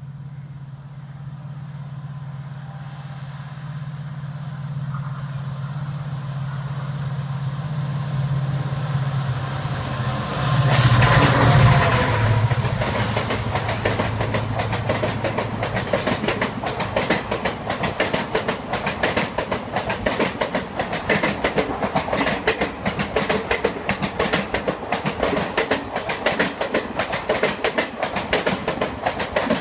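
Express train running through a station at high speed without stopping. A steady low hum grows louder for about ten seconds as it approaches and peaks as the locomotive passes. Then comes a long, fast clickety-clack of coach wheels over the rail joints as the sleeper coaches rush by.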